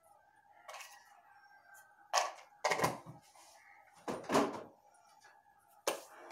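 Kitchen utensils and cookware being handled at the stove: a few separate knocks and clatters, the loudest around two and four seconds in, over a faint steady hum.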